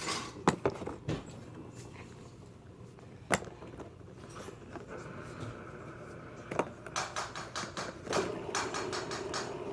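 Fidget spinners being handled and spun: scattered small clicks and knocks of hard plastic, then a steady whir that comes in about five seconds in and grows stronger near the end, with rapid clicking around it.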